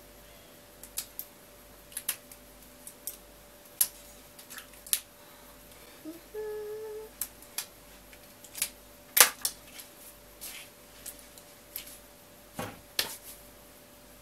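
Irregular sharp clicks and taps of a pen handled and fiddled with between the fingers, with a short hummed note about six seconds in.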